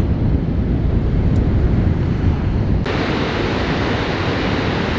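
Wind buffeting the microphone of a camera on a moving bicycle, a heavy low rumble; about three seconds in it cuts abruptly to the steady, even rush of water pouring over Niagara Falls.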